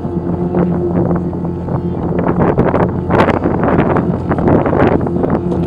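Oscillator synthesizer drone played through a loudspeaker: a steady low tone with overtones. Wind buffets the microphone, gusting loudest from about two to five seconds in and partly drowning the drone.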